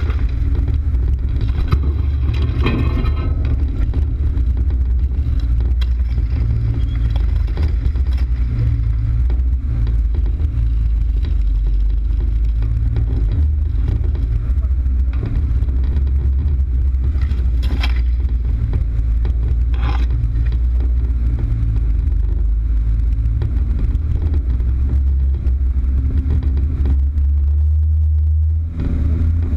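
Off-road vehicle engine running with a steady low rumble, joined by a few brief sharper knocks.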